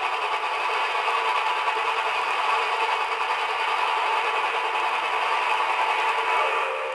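Doubleheaded Nickel Plate Road steam locomotives working hard as they approach, a steady exhaust and running-gear sound with no bass, as on an old film soundtrack.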